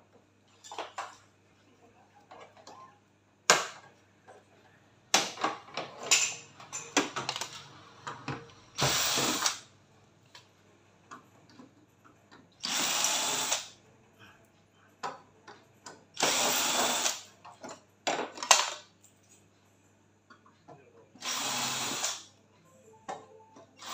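Electric screwdriver running in four short bursts of about a second each, backing the screws out of a flat-screen TV's plastic rear cover, with sharp clicks and knocks of handling between the bursts.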